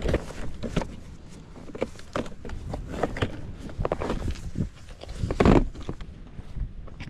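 Irregular footsteps and knocks over a low rumble, with the loudest thump about five and a half seconds in.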